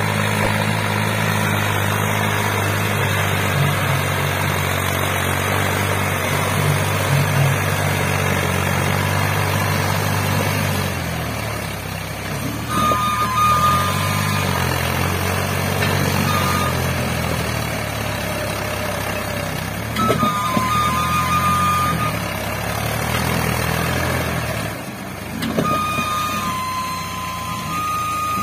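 New Holland 3630 tractor's three-cylinder diesel engine lugging under heavy load as it drags two loaded sugarcane trolleys through mud. The engine note is steady at first and turns uneven about halfway through. From there, high steady beeping tones come and go.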